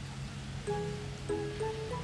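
Background music: a gentle instrumental melody of held notes that change every few tenths of a second, over a steady low bass.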